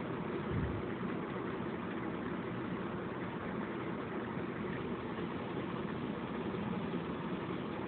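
Electric fan running steadily: an even rush of moving air over a low hum from the motor, with one brief low bump about half a second in.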